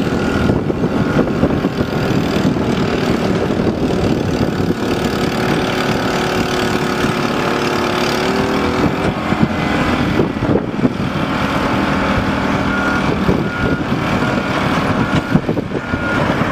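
Mini excavator's engine running steadily while it works, with a few sharp knocks partway through.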